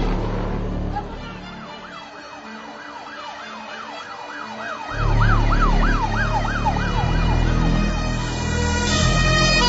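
An emergency vehicle's siren in a fast yelp, rising and falling about three times a second, loudest around the middle, over a low rumble that grows louder about halfway through.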